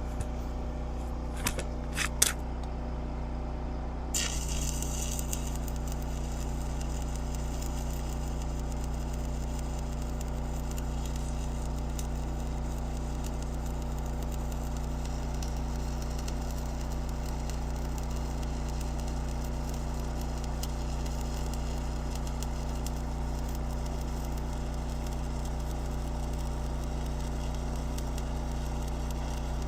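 Welding arc crackling and sizzling at an even level, starting about four seconds in, over a steady electrical hum from the welding machine. A few sharp clicks come just before the arc strikes.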